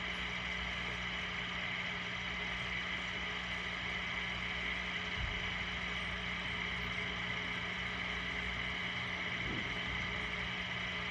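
Steady mechanical hum of a small motor: a low drone with a constant higher whine, unchanging throughout. A faint low thump about five seconds in.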